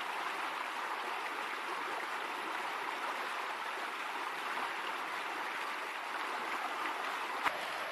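A small, clear stream running steadily over a rocky bed, a continuous rush of water. A single sharp click sounds near the end.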